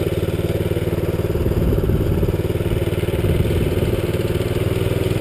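Minibike's small engine running steadily at low speed, with an even, rapid putter.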